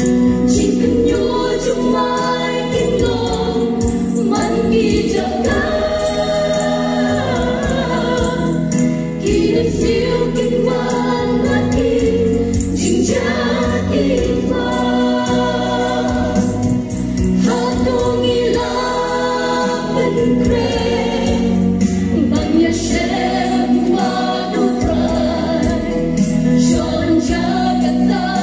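Mixed choir of women's and men's voices singing a hymn in parts, in Khasi, amplified through stage microphones.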